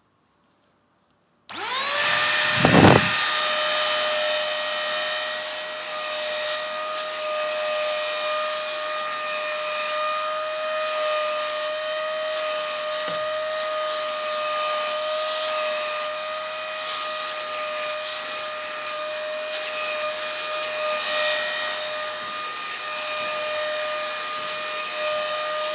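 Shimono cyclone vacuum cleaner switched on about a second and a half in: the motor spins up with a quickly rising whine, then runs steadily with a high whine over airflow noise. A brief low thump comes about a second after it starts.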